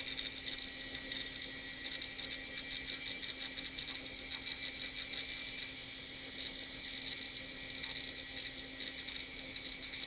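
Quantum ProDrive LPS 230 MB hard drive clattering as its heads seek, a rapid, irregular run of clicks over a steady hum. The drive is busy with disk activity while the computer runs.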